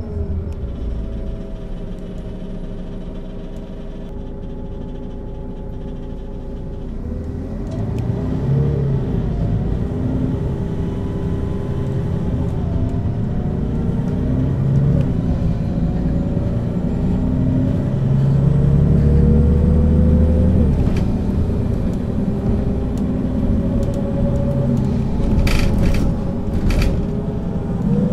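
Mercedes-Benz O 530 G Citaro articulated bus heard on board: its diesel engine and ZF automatic gearbox running, speeding up from about eight seconds in with the engine and gearbox whine rising in pitch in steps. A few sharp clicks near the end.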